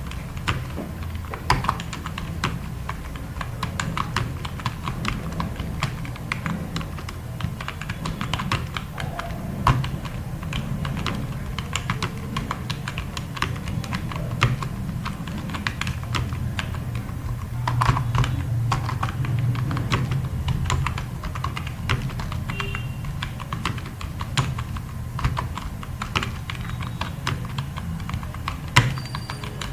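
Fast typing on a computer keyboard: a rapid, irregular stream of key clicks, over a steady low hum.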